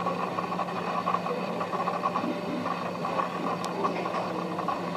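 JR Freight EF64 electric locomotive running with a freight train: a steady mechanical hum over continuous rail noise.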